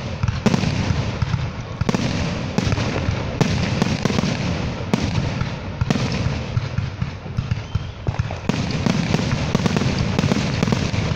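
Fireworks going off in a continuous barrage: many sharp bangs over a steady crackle, coming thickest in the last few seconds.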